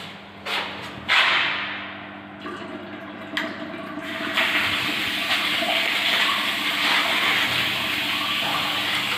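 Water gushing through bathroom plumbing: a sudden rush about a second in that dies away, then a steady heavy flow of water from about four seconds on.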